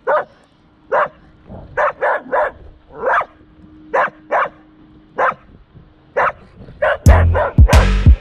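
A dog barking over and over in short, sharp barks, roughly one or two a second. About seven seconds in, a louder sound with deep bass starts under the last barks.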